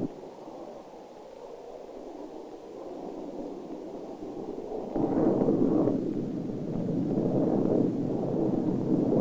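Rushing roar of a jet aircraft in flight. It is softer for the first few seconds, then grows louder about five seconds in and swells and eases.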